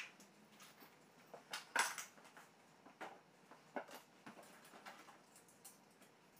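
Faint, scattered clicks and clinks of small hard objects being handled by hand. The loudest is about two seconds in.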